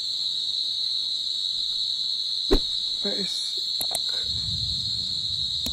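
Night crickets trilling in one continuous, unbroken high note, with a single sharp click about halfway through and a brief low rumble near the end.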